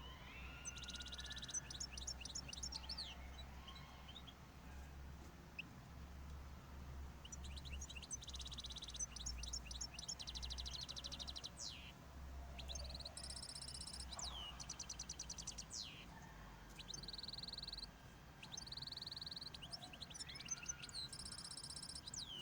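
Small cage birds in breeding condition chirping and singing in short repeated phrases of high buzzy notes and quick chirps, over a low steady hum.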